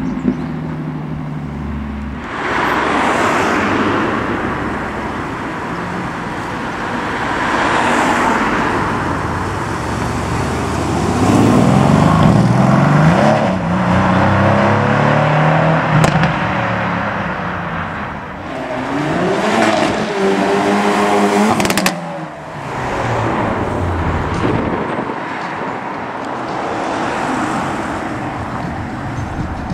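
Performance cars pulling away one after another, among them a Nissan 370Z Nismo and a Mercedes-AMG C63 convertible, engines revving hard up through the gears. The loudest rising rev comes near the middle. A sharp crack follows a little later, then another rising rev that cuts off suddenly.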